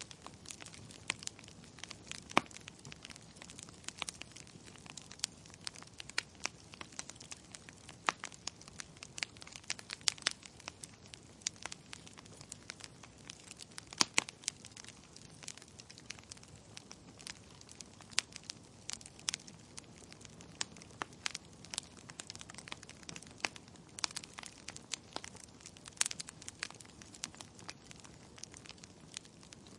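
Wood fire burning in a fireplace, logs crackling: a steady faint hiss of flame with frequent irregular snaps and pops, a few of them sharply louder.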